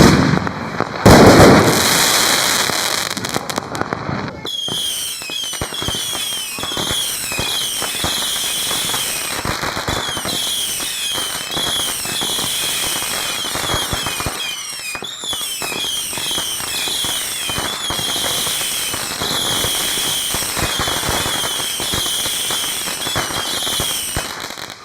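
Consumer fireworks going off: two loud bangs at the start, then about twenty seconds of dense crackling threaded with many short falling whistles, which stops abruptly near the end.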